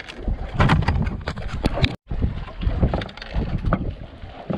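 Wind buffeting the microphone on an open boat, with irregular knocks and clatters as a fisherman handles a caught fish and a handline on the wooden deck. The sound cuts out for an instant about two seconds in.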